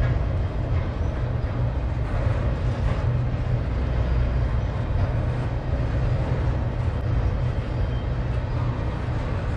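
Double-stack container well cars of a freight train rolling past: a steady, unbroken rumble of steel wheels on rail.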